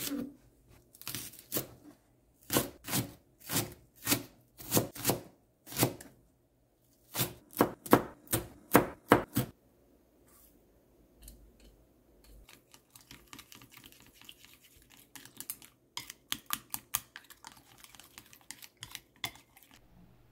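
Kitchen knife chopping green onion and chili on a cutting board, crisp strokes about two a second, then a quicker run of about three a second. From about ten seconds in there are only soft, quick clicks of chopsticks stirring beaten egg in a glass bowl.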